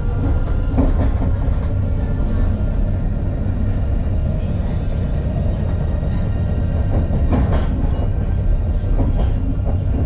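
Alstom Citadis low-floor tram running along its track: a steady low rumble with a faint steady whine over it. A few sharp clacks from the wheels on the rails come about a second in and twice near the end.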